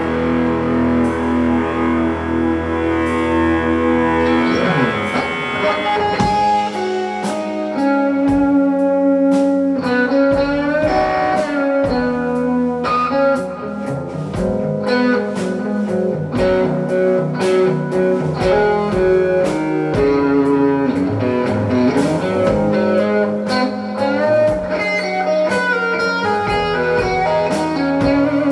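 Live rock band playing an instrumental passage led by electric guitar: held chords at first, then a steady beat of sharp strokes comes in about six seconds in.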